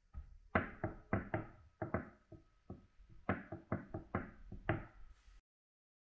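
Samsung Galaxy S22 Ultra lying face up on a wooden table, rocking on its protruding rear camera bump and knocking against the wood each time its screen is tapped. A quick run of hard knocks comes in two groups, then cuts off suddenly about five seconds in.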